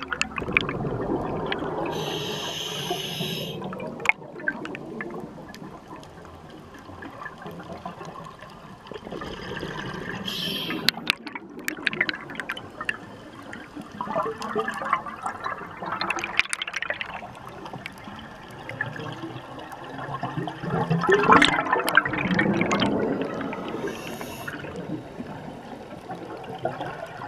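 Scuba breathing heard underwater: bursts of gurgling exhaled bubbles from a regulator, returning about every six seconds, with a short high hiss three times between them.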